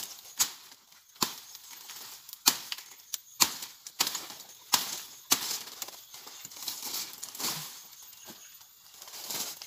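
Bolo knife chopping through brush and small woody stems: a string of sharp strikes, about seven in the first five and a half seconds, then rustling and crackling of leaves and branches.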